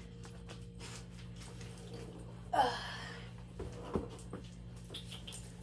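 Steady low electrical hum in a small room. About two and a half seconds in comes one short voice-like sound that falls in pitch, and a light knock about four seconds in.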